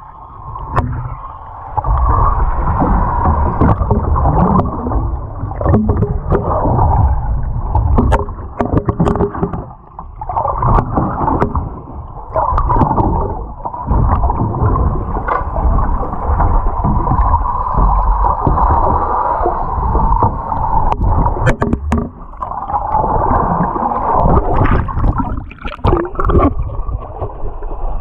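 Underwater sound from a camera submerged beside a capsized boat: muffled, rushing, sloshing water with a deep rumble and scattered sharp knocks and clicks.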